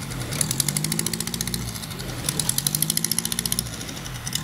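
Honda Jazz engine running at idle in the open engine bay, with a rapid ticking that comes in bursts about every two seconds.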